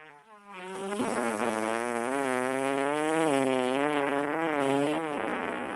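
A long buzzing drone with a wavering, wobbling pitch, like an insect's buzz. It builds up in the first second and starts to tail off near the end.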